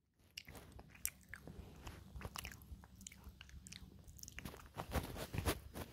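Grey cat chewing its food close to the microphone: an irregular run of sharp clicking bites, loudest about five seconds in.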